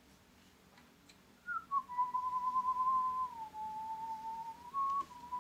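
A person whistling a tune, starting about a second and a half in: one clear note at a time, stepping between a few pitches and holding each note a while.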